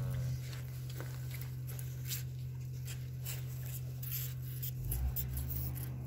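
A calf sucking on a bottle nipple, with faint irregular slurping and squishing noises. A steady low hum runs underneath, and there is a brief low thump about five seconds in.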